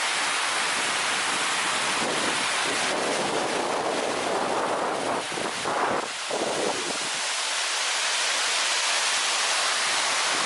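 Steady rush of a large waterfall (Crabtree Falls) cascading over rocks close to the microphone, a loud even roar of water, with some wind noise on the microphone around the middle.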